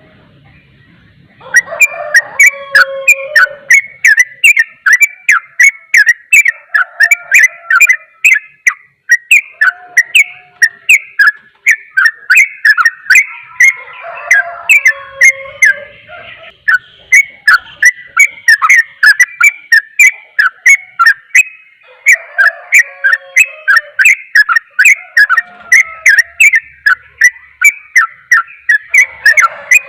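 Yellow-vented bulbul (trucukan) singing a rapid, continuous chattering 'ropel' song of sharp whistled notes, several a second. It starts about a second and a half in, after a brief pause.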